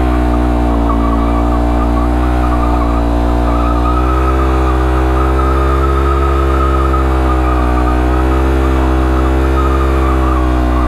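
Motorcycle engine held at steady high revs during a rolling burnout, the rear tyre spinning and squealing against the road.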